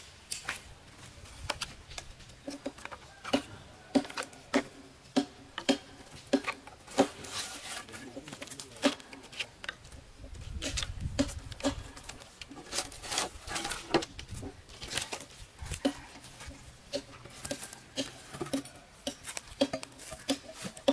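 Irregular light knocks and clicks, one to three a second and of varying strength, with a brief low rumble about halfway through.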